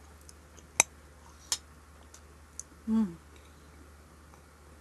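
Sharp clicks of eating utensils against a ceramic bowl, the loudest about a second in and two lighter ones after it, with a short falling hum from a voice about three seconds in.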